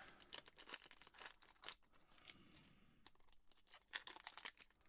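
Faint crinkling and crackling of a trading-card pack's wrapper and cards being handled, a quick run of short crackles and ticks.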